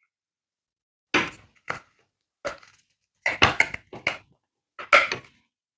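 Short, uneven bursts of clicking and scraping, about six in all, as a part is worked and pushed into place on a blow dryer until it goes in.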